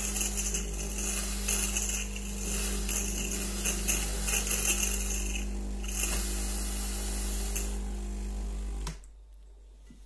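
De'Longhi espresso machine's vibratory pump buzzing steadily, with steam hissing, as water is flushed through to rinse citric acid descaler out of the system. It cuts off suddenly about nine seconds in, when the machine is switched off.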